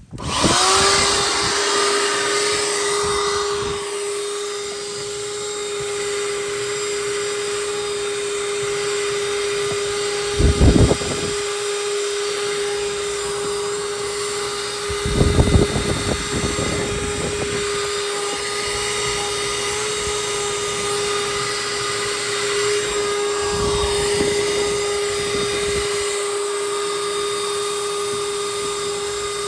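Mini shop vac switched on, its motor spinning up within the first second and then running at a steady pitch while vacuuming car carpet. There are brief louder noises about 10 seconds in and again around 15 seconds in.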